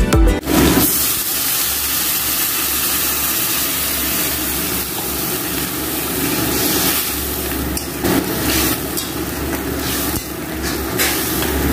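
Bitter gourd, potato and red amaranth stems sizzling in hot oil and water in a wok, a steady hiss that starts abruptly about half a second in, with a metal spatula stirring and scraping now and then.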